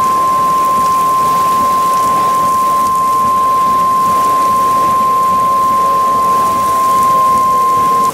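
A steady single-pitch beep tone, held unbroken and cutting off suddenly near the end, over the hiss of heavy rain.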